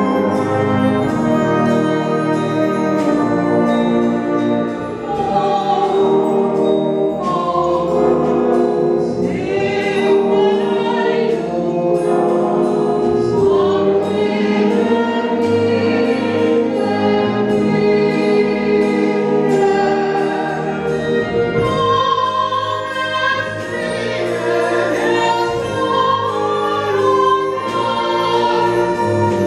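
Mixed choir of men and women singing, with a concert band accompanying in sustained, slowly changing chords.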